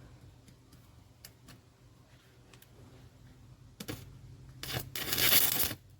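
Aluminum stick-welding rod arcing: a brief strike about four seconds in, then about a second of loud hiss near the end, over a low steady hum and faint ticks.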